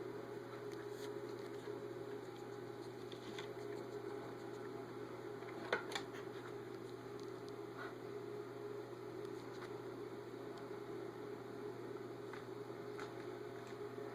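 Steady background hum and hiss, like a fan or mains hum. Two short clicks come a little before the middle.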